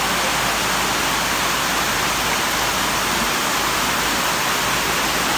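Heavy rain pouring down steadily on the tent canopies, an even, unbroken hiss.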